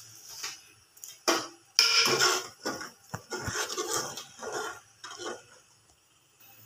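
Metal spoon stirring in a metal pot of boiled milk, knocking and scraping against the pot's side in a string of irregular clinks.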